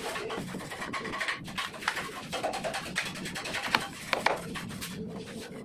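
A few scattered, irregular hammer knocks on the wooden planks of the concrete slab formwork.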